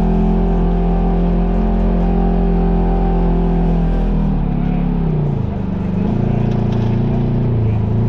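Polaris RZR side-by-side engine held at steady revs. About halfway through the revs drop, then it runs steadily at a lower pitch.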